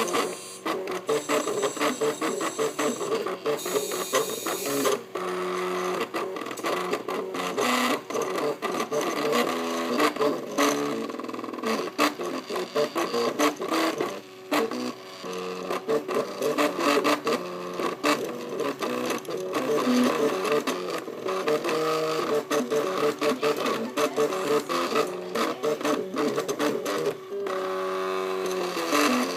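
Small motorised machine running, its motor tones jumping between pitches among rapid clicking, with a falling series of stepped tones near the end.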